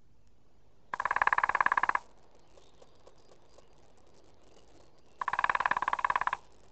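A woodpecker drumming on a tree trunk: two rapid, even rolls of beak strikes on wood, each about a second long, the first about a second in and the second near the end.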